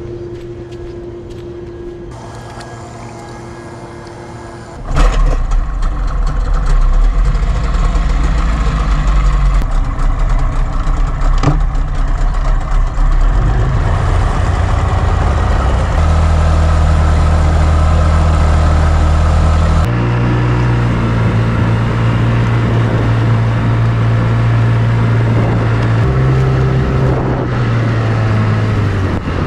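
An engine running, quieter at first and much louder from about five seconds in. Its pitch then shifts up and down in steps, as if with changes of throttle.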